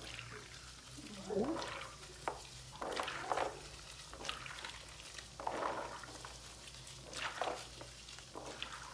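Wet squishing and rustling of soaked açaí berries being squeezed and rubbed together by hand in a plastic basin of water, working the pulp loose from the seeds. It comes in short bursts every second or so.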